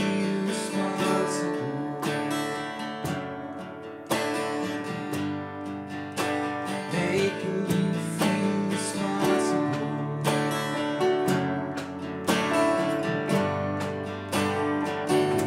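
A live band: acoustic guitar strummed in a steady rhythm, with keyboard and electric bass playing along.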